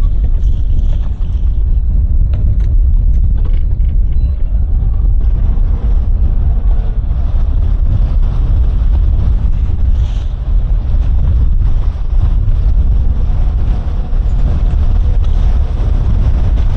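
Wind buffeting the microphone over the steady rumble of a towboat's Suzuki outboard motors running underway through chop.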